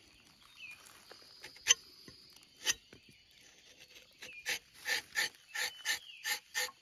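Rubber-tapping knife shaving a thin strip of bark from a rubber tree's tapping panel. A few faint clicks, then from about four seconds in a quick run of short cutting strokes, about three a second.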